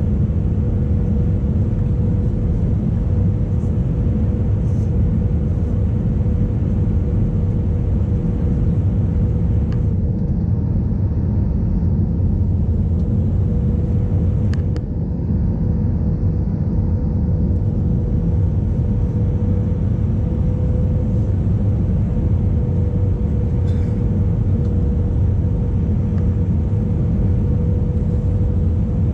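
Airbus A318 cabin noise in flight: the steady rumble of the jet engines and airflow, with a constant hum-like tone over it. A faint click comes about fifteen seconds in.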